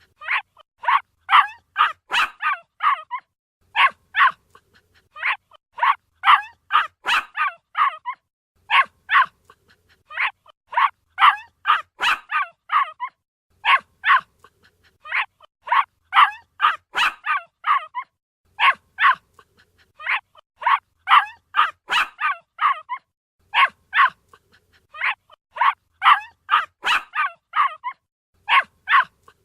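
A puppy barking in quick, high-pitched yaps, in runs of several yaps with short pauses between, the same sequence repeating about every five seconds as a loop.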